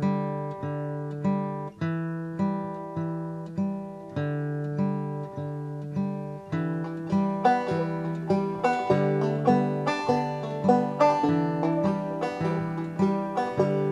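Background music of plucked acoustic guitar playing a repeating pattern of picked notes; about halfway through the picking gets quicker and brighter.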